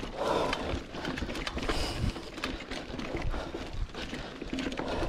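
Mountain bike rolling over a rocky dirt trail, its tyres crunching on loose stones and the bike rattling with many small, irregular knocks over the bumps.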